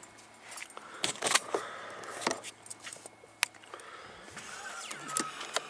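Scattered light clicks and rustles from someone moving about and handling things in a car's back seat, with a faint steady hum beneath.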